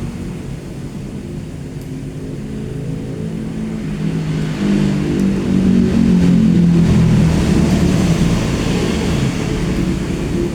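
A low engine hum that swells louder about halfway through, then eases slightly.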